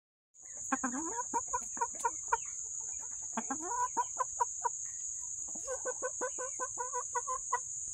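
Chickens clucking in three runs of quick, short clucks, about four or five a second, over a steady high-pitched whine.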